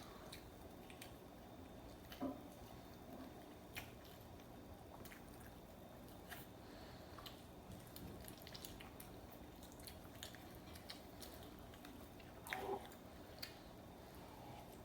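Faint chewing and eating sounds, with small scattered clicks and two short louder sounds, one about two seconds in and one near the end.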